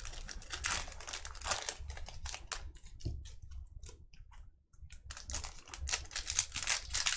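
Crinkling and rustling of a sports card hobby box's packaging being handled and opened. It comes in irregular crackles, quieter for a couple of seconds in the middle.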